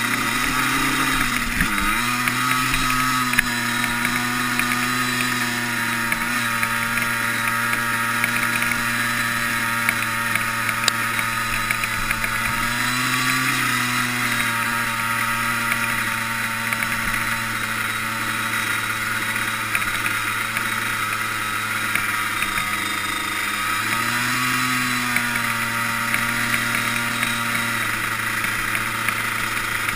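Yamaha Blaster quad's two-stroke single-cylinder engine running steadily under way. Its pitch dips and climbs again about two seconds in, then rises briefly twice more as the throttle changes.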